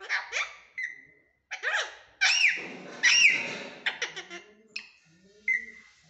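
Pet parakeet in a cage calling: a rapid string of short, sharp squawks and chirps, many rising and falling quickly in pitch, turning into softer chattering in the last couple of seconds.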